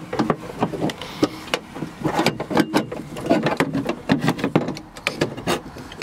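Irregular metallic clicks, clinks and rattles of a Lexus LX470 tailgate latch assembly and its linkage rods being worked free and handled.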